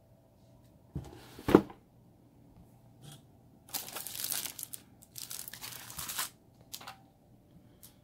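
A single sharp thump about one and a half seconds in, then a clear plastic cover crinkling and rustling in two stretches as it is pulled off a keyboard.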